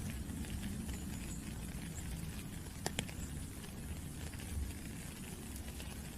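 Steady rain with drops pattering over a low rumble, and two sharp close drop ticks about three seconds in.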